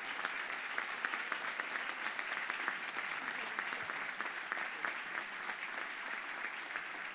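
An audience applauding: a roomful of people clapping steadily.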